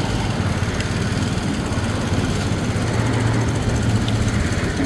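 An engine running steadily at idle: a continuous low, even hum.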